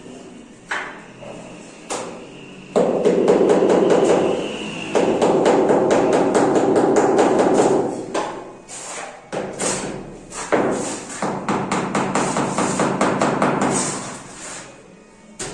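Rapid hammer-like tapping and knocking, many quick strokes a second, in two long runs with a short break about eight seconds in.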